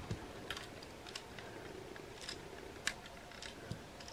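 Faint, scattered light clicks and taps of a hard-plastic Lego car model being handled, about half a dozen over a few seconds.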